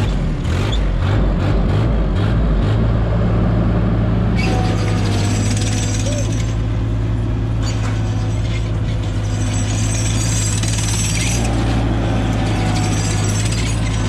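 Terex PT-30 compact track loader's diesel engine running as the machine is driven. It is uneven and pulsing for the first few seconds, then settles into a steady drone about three seconds in.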